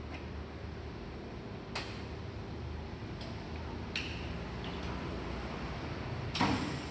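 Steady background hum with a few scattered clicks and light metallic clinks, one ringing briefly, and a louder knock near the end.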